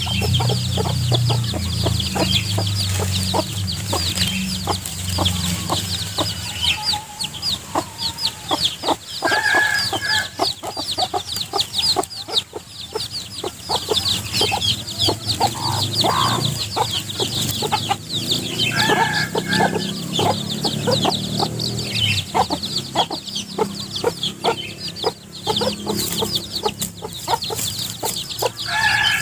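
Chicks peeping rapidly and continuously while hens cluck now and then, amid frequent rustles and scrapes as the birds scratch and peck through dry leaf litter.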